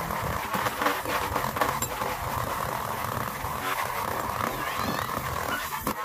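Small handheld rotary tool with a wire brush bit scrubbing rust off the threaded rods of a rusty steel turnbuckle: a steady motor whine with a scratchy rasp of wire bristles on metal.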